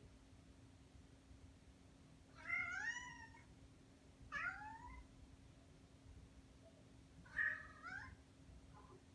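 A cat meows three times, about two and a half, four and a half and seven and a half seconds in. Under it runs a steady low hum from the fan of a Daikin FTXF35C air conditioner's indoor unit running in quiet mode.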